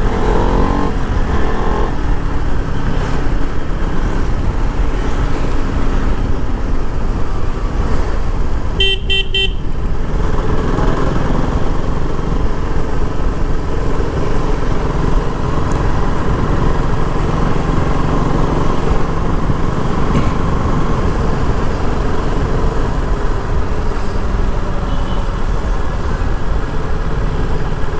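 KTM RC 200 motorcycle's single-cylinder engine running steadily under way, over constant road noise. A vehicle horn honks briefly about nine seconds in.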